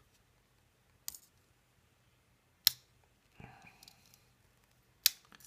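Victorinox Swiss Champ pocket knife being handled as its tools are opened: three sharp clicks about a second and a half apart, with softer handling noise between the second and third.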